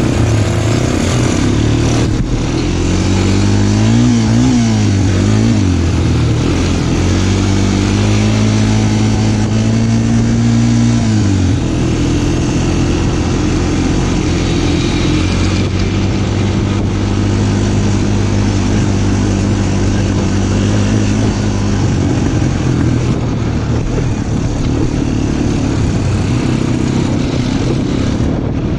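Small off-road vehicle engine running while riding, its pitch rising and falling a few seconds in as the throttle is worked, then holding steadier. The engine note drops about a third of the way through and runs evenly after that.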